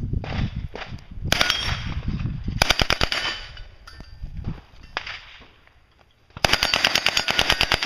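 Full-size Uzi submachine gun firing on full auto in three bursts: two short bursts about a second apart, then a longer burst of about a second and a half near the end.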